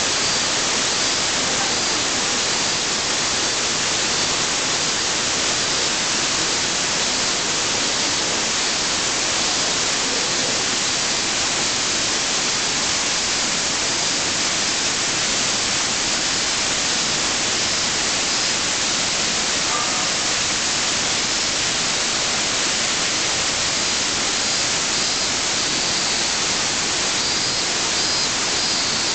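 Waterfall: water falling in many thin streams down a broad rock face and splashing below, a steady, even rush with a bright hiss that does not change.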